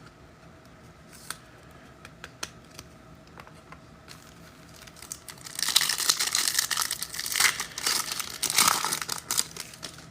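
A few light clicks of cards being handled, then, from about halfway through, a trading-card pack wrapper torn open and crinkled for about four seconds.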